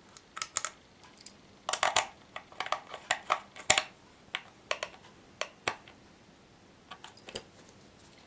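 Irregular small clicks and taps of a thin metal tool and fingers working at the plastic case of a homemade airsoft chronograph, busiest about two to four seconds in, with a few more near the end.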